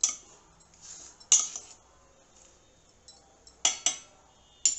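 Steel spoon clinking against a stainless steel pot while tomato wedges are stirred: a handful of sharp metallic clinks, two of them close together near the end.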